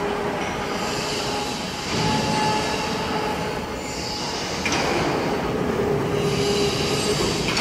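Steady mechanical noise with a faint, wavering squealing whine through it.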